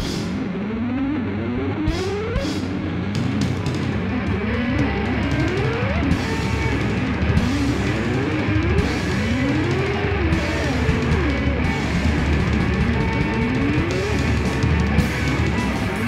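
Instrumental noise rock: an electric guitar plays sliding lines that keep rising and falling in pitch over a drum kit with steady cymbal hits.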